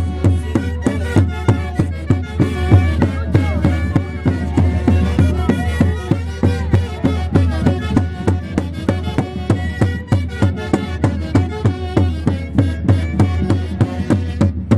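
Live Andean orchestra playing a Santiago dance tune from Huancayo, with held melodic lines over a steady drum beat.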